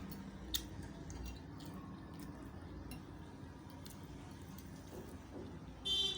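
Close-miked eating sounds: faint wet mouth noises and small ticks of tableware, with a sharp click about half a second in and a short clink near the end.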